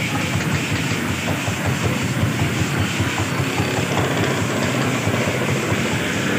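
Steady, loud rumbling and hissing noise from a busy street-food stall, with a few faint clicks of a metal spatula on the flat-top griddle where eggs are frying.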